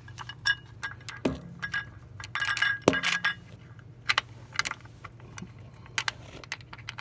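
Small metal parts clinking and tapping irregularly as an oil filter adapter and its bolts are handled and set against the engine block, with two louder knocks about a second and three seconds in. A steady low hum runs underneath.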